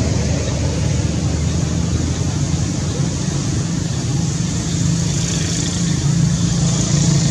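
Steady outdoor background noise: a continuous low rumble under an even hiss, with no distinct events.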